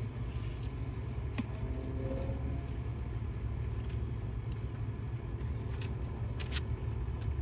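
Steady low rumble of background noise with a few faint light clicks.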